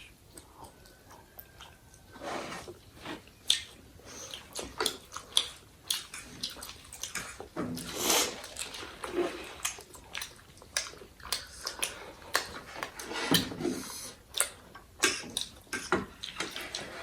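Close-up eating sounds: people chewing and biting food, with irregular wet mouth noises and sharp clicks, starting about two seconds in.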